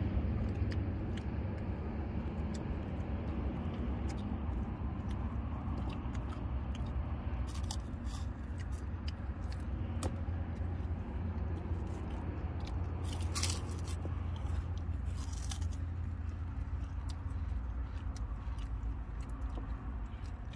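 People eating with their hands, chewing and biting into fried kerupuk crackers, with a few short crunches about eight, thirteen and fifteen seconds in. A steady low hum runs underneath.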